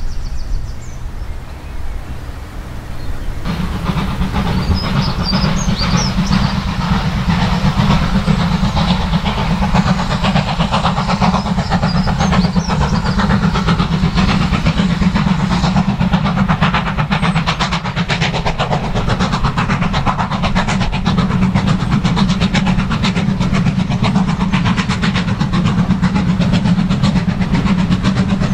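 Wind on the microphone for the first few seconds, then, from about three and a half seconds in, a steam locomotive working hard as it hauls a train of coaches past, its exhaust and the running of the train steady and loud.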